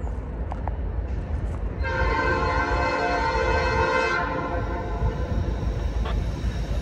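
Norfolk Southern freight locomotive air horn sounding one long blast of about two seconds, warning for the grade crossing as the train approaches. A steady low rumble runs underneath.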